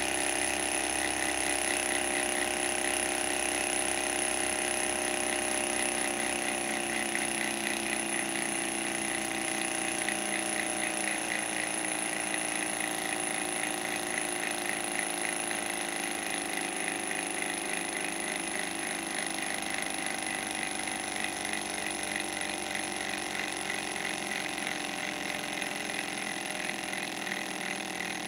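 Small two-cylinder desktop Stirling engine running, a fast rhythmic mechanical clatter of its pistons, flywheel and belt-driven generator. It slowly drops in pitch and gets quieter as the engine coasts down on leftover heat with its alcohol burner out.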